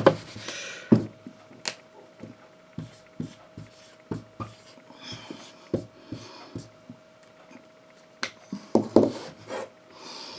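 Scattered soft taps and rubs with a few breaths, over a faint steady hum.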